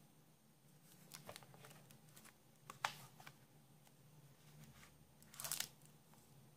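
Hands handling a hardcover DVD digibook on a wooden table: faint scrapes and taps as the book is turned over, then a louder rustle about five and a half seconds in as the cover is opened.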